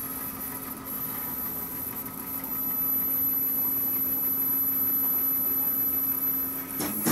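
Stepper motors of a homemade CNC machine humming steadily as the Z axis lowers the spindle. The hum grows a little louder about two and a half seconds in, and a short rush of noise comes near the end.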